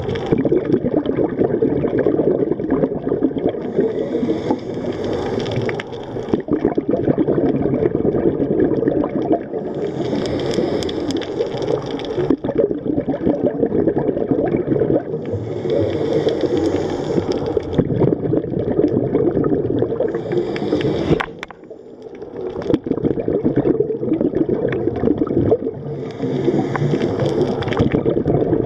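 Scuba diver breathing through a regulator underwater: a steady gurgle of bubbles, with a hissing surge of breath about every five or six seconds and a short lull about three quarters of the way through.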